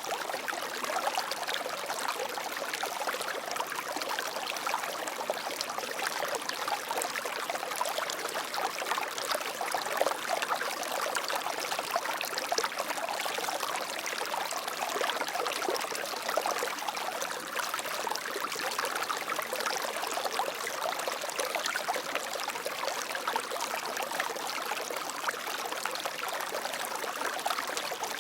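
Water flowing steadily, a continuous splashing and trickling rush with many small irregular splashes.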